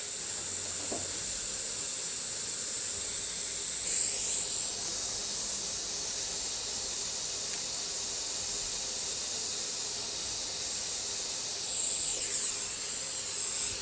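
Portable gas soldering iron hissing steadily as it burns, growing louder about four seconds in and easing back near the end.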